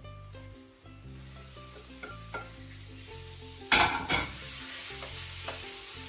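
Raw boneless chicken pieces going into hot olive oil with frying onions and garlic: a wooden spatula scrapes and stirs, then about four seconds in a sudden loud sizzle breaks out and keeps hissing.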